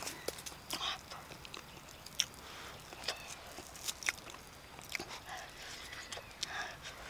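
A person chewing and biting into fire-roasted cassava close up, with irregular wet mouth clicks and smacks.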